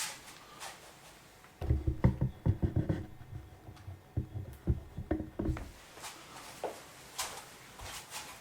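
Handling noise close to the microphone: a cluster of dull low bumps and knocks lasting about four seconds, then a few faint clicks.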